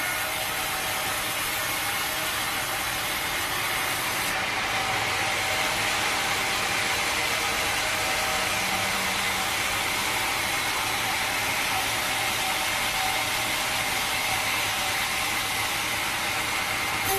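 Sawmill machinery running steadily: a dense mechanical noise with a faint, steady high whine.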